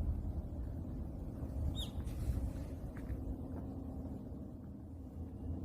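Low steady outdoor rumble with a single short, falling bird chirp about two seconds in.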